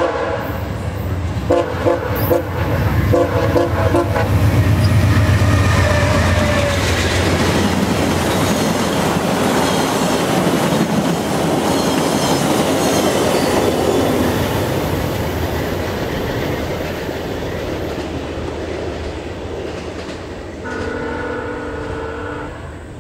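VIA Rail passenger train led by a GE Genesis P42DC diesel locomotive sounds two short blasts on its multi-chime horn. It then passes at speed with a loud rumble and wheel clatter over the rail joints, which fades as the train moves away. Near the end the horn sounds once more from the receding train.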